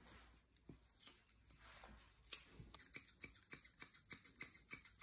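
Grooming scissors snipping through a dog's fur. A few scattered snips come first, then from about halfway a quick, even run of snips, about five a second.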